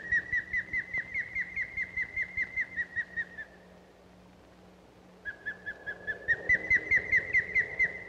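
Osprey calling: a rapid series of short, sharp whistles, about six a second, rising slightly in pitch. The calls come in two bouts with a pause of about two seconds between.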